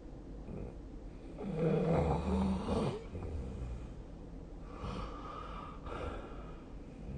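A sleeping person snoring: one loud, low, rattling snore about a second and a half in, lasting over a second, followed by quieter breaths.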